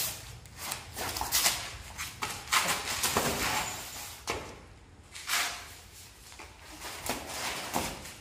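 Irregular scuffing and rustling of people moving about on a concrete floor laid with flattened cardboard boxes, loudest in the first few seconds.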